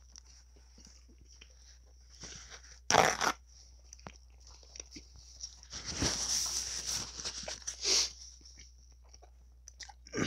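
Close-miked eating sounds: quiet chewing, a loud short crackle about three seconds in, then a paper napkin rubbing over the mouth and face for about two seconds.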